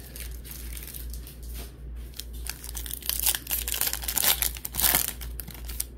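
Shiny foil wrapper of a baseball card pack crinkling and tearing as it is ripped open by hand, the rustling louder in the second half.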